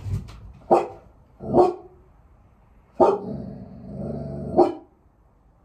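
Pet dog alert-barking at a car stopped outside the house: four sharp barks, the third running into a drawn-out lower sound before the last.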